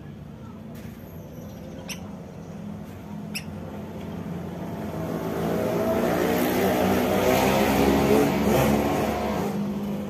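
A motor vehicle's engine going past: a steady pitched hum that grows louder from about halfway in and fades near the end.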